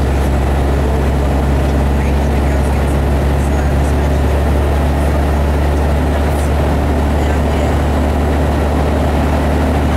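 Kenworth truck's diesel engine running steadily under way, heard from inside the cab as a deep, even drone with road noise.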